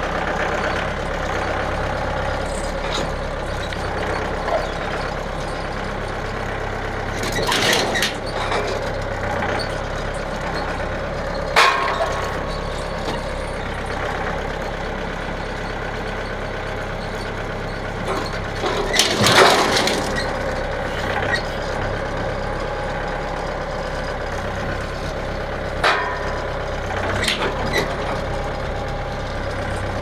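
Compact tractor engine running steadily while it carries a heavy log slung under its front-loader forks, with a few short knocks, the loudest about two-thirds of the way through.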